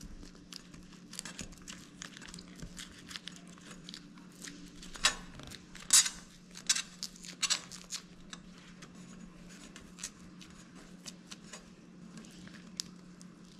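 Adhesive foam-ringed latex sampling patch being peeled off a steel plate: intermittent crackling and tearing as the adhesive lets go, loudest in a run of sharp pops about five to eight seconds in. The foam ring tears and stays stuck to the steel. A steady low hum runs underneath.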